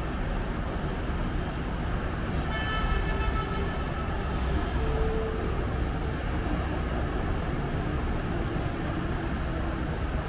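Steady city road-traffic noise from cars, trucks and motorbikes, with a vehicle horn sounding for about a second, some two and a half seconds in.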